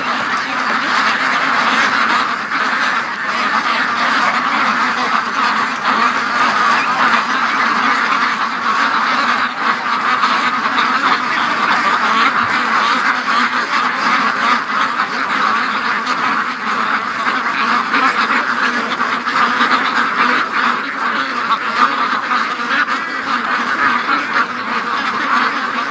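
A large flock of domestic ducks quacking all at once: a dense, steady chorus of overlapping calls with no pauses.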